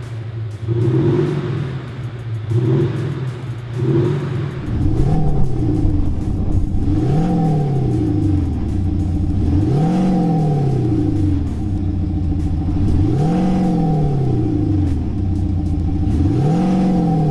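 VW Arteon revving with a Maxhaust active sound module, which plays an artificial exhaust note through a speaker under the car. It opens with short, quick rev blips on one sound setting. About four and a half seconds in, it changes to a second setting: slow, smooth swells up and down in pitch about every three seconds, with a steady hum over them.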